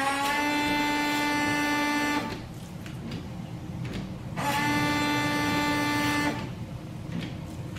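Windshield washer pump of a 2012 Ram 1500 whining as it sprays fluid onto the windshield: two steady runs of about two seconds each, each rising slightly in pitch as the motor spins up. The wipers run with a lower, steady noise between the two runs.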